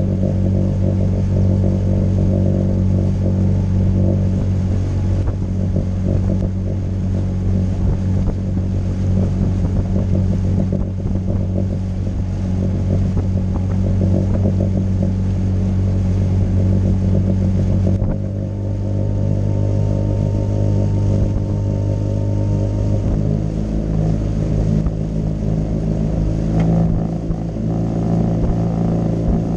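Suzuki DF20A four-stroke outboard motor running steadily, pushing a small aluminium boat at cruising speed. Its note shifts slightly about two-thirds of the way through.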